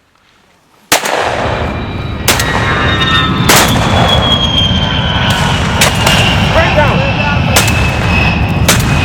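Shotgun shots: about seven sharp blasts over eight seconds, the first arriving suddenly about a second in, over a continuous heavy rumble. A faint high tone slowly falls in pitch throughout.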